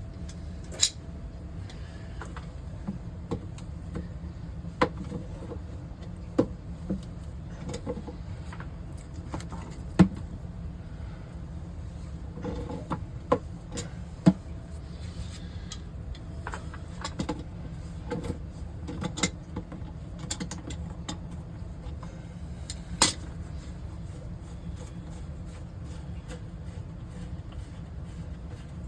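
Scattered sharp clicks and knocks, about fifteen of them and irregular, over a steady low rumble.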